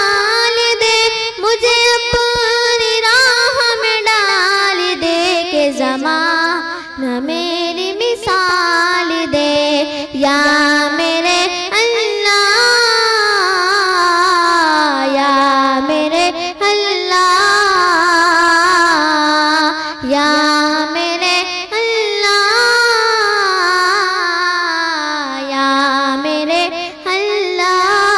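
A young girl singing a devotional Urdu dua solo into a microphone, drawing out long notes that bend and waver in pitch.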